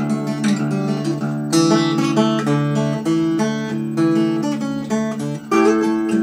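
Acoustic guitar in open C tuning played solo: picked notes ringing over low sustained bass notes, with fuller strummed chords about a second and a half in and again near the end.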